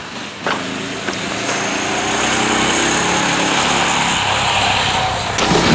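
Go-kart's small gas engine running, coming in about half a second in and growing louder, at a fairly steady pitch.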